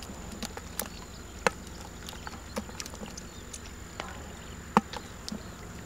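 Scattered, irregular sharp wet clicks and slaps as a hand sorts through mud and small fish in a plastic basket, over a faint steady high whine.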